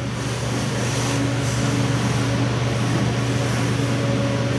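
A steady low machine hum, with a couple of faint clicks of small parts being handled about a second in.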